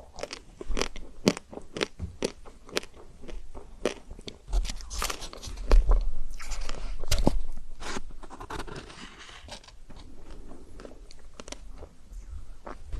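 Close-miked eating of chocolate-coated ice cream: crisp crackling crunches as the hard chocolate shell is bitten and chewed, with a louder run of crunching in the middle.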